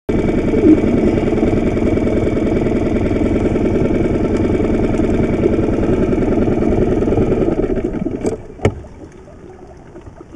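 Mercury outboard motor idling steadily, then dropping away sharply about eight seconds in, with two sharp knocks as it fades.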